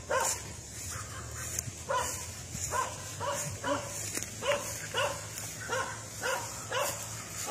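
Short animal calls repeated at a fairly even pace, about one every half second to second, starting about two seconds in.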